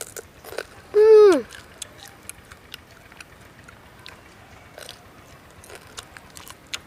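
A person chewing grilled chicken close to the microphone: irregular wet smacks and clicks of the mouth. About a second in, a short loud call falls in pitch.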